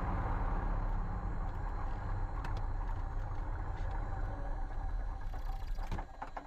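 1967 Cessna 172H's six-cylinder Continental O-300 engine running at idle while taxiing, heard from inside the cabin; its sound falls away about six seconds in.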